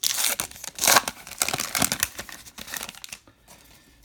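Crinkling and tearing of a baseball card pack's foil wrapper as it is ripped open and pulled apart, loudest about a second in and dying down after about three seconds.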